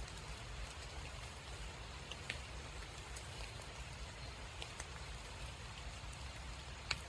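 Light rain in woodland: scattered raindrops ticking irregularly over a soft, steady hiss, with one sharper drop near the end.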